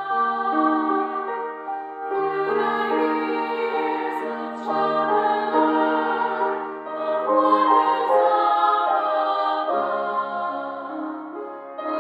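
Small mixed choir of men and women singing a slow hymn in harmony, holding each chord for a second or two before moving to the next.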